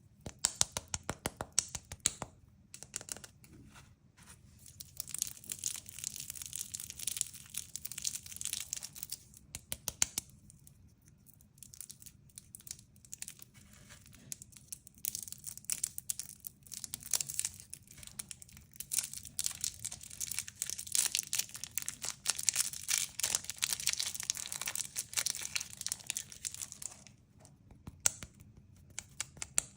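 Close-miked candy packaging being crinkled and torn open, a dense high crackling that comes in stretches with short pauses.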